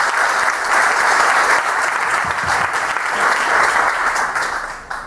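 Audience applauding steadily, stopping near the end.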